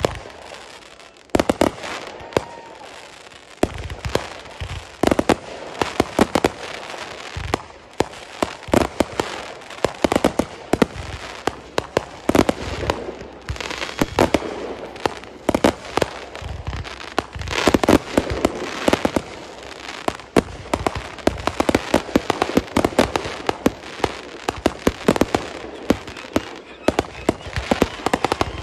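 Aerial fireworks going off in rapid succession: a near-continuous string of sharp bangs, launch thumps and crackling bursts, sparse for the first second or so and then densely packed.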